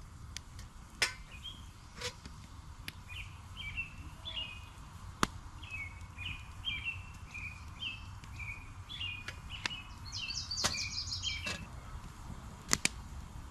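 A songbird chirping in a long series of short, quick notes, with a few sharp pops from a crackling campfire.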